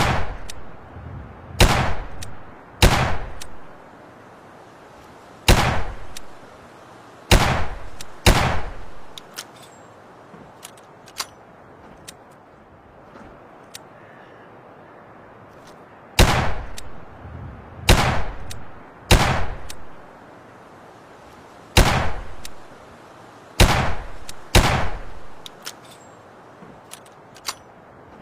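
Chiappa Rhino Short revolver firing twelve shots in two strings of six, each shot followed by a short echoing tail. Between the strings there is a pause of about eight seconds with a few faint clicks, the length of one cylinder reload.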